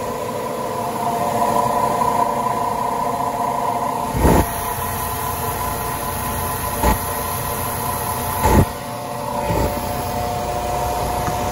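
Two laundry spin dryers, a Colormaq and an Arno, spinning together with a steady motor whine. A few short thuds break in, the loudest about four and eight and a half seconds in.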